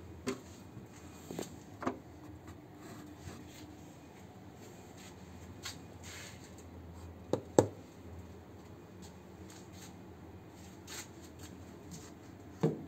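Handling noise: a few short knocks and rubbing sounds, the loudest a close pair about seven and a half seconds in, over quiet room tone with a faint low hum.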